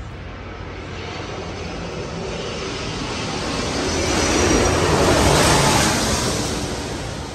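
An aircraft passing by: a rushing engine noise that swells to a peak about five seconds in, then fades and cuts off suddenly.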